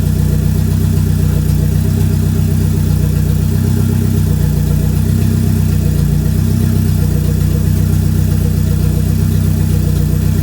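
Turbocharged 2RZ four-cylinder engine of a Toyota Tacoma running steadily at an even speed, with no revving.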